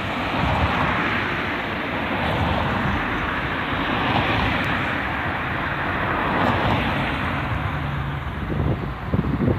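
A vehicle going by as a steady rushing noise with a low rumble, and wind buffeting the microphone near the end.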